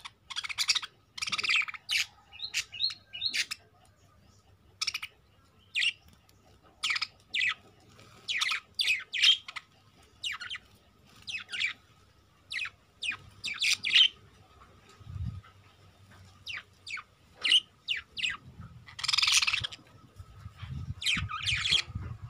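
Juvenile budgerigars chirping: many short, high chirps in irregular, overlapping bursts, with a denser stretch of chatter near the end.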